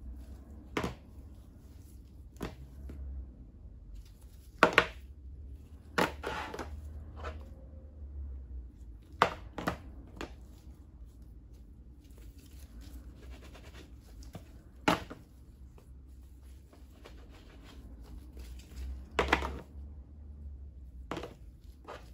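Clear plastic tubs being handled, set down and stacked on a tabletop: irregular sharp plastic knocks and clicks, about a dozen, some with a brief scuff, over a low steady hum.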